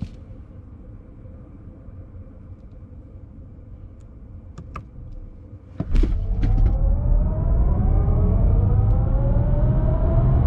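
Electric drive motors of a BMW iX1 xDrive30 whining as the car accelerates, the whine rising steadily in pitch over loud low road rumble. The surge starts suddenly about six seconds in, after a quieter steady hum broken by a few clicks.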